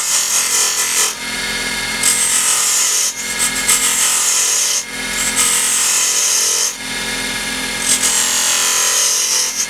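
Wood lathe running at 2600 RPM with a steady motor hum. A homemade drill-shank detail cutter with a fingernail grind cuts grooves into hardwood in five short passes, each a hissing scrape of a second or so.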